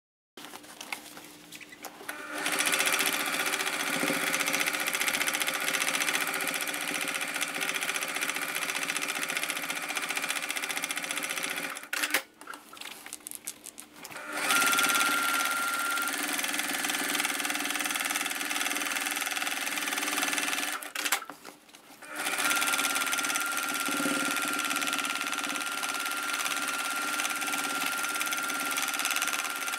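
Domestic sewing machine stitching steadily in three long runs, stopping briefly twice.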